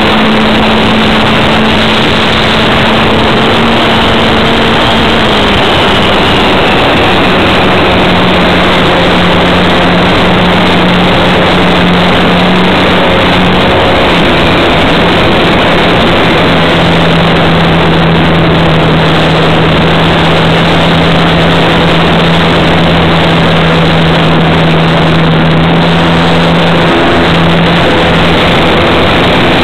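RC model Cessna's motor and propeller heard from a camera on board the plane, loud, with a heavy rush of air over the microphone. The motor's steady hum drops in pitch in steps, about five and fourteen seconds in.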